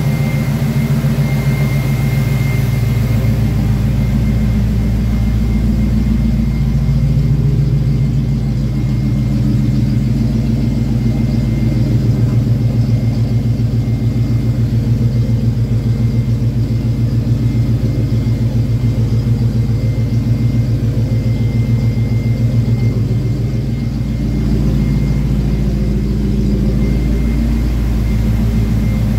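Car engine idling steadily, with several alternators on its belt, and a faint steady high-pitched tone above the engine's low pulsing.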